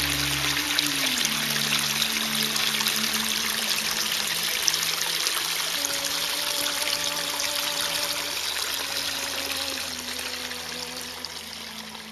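Spring water trickling and running steadily, with soft, slow music of held notes beneath it; both fade down near the end.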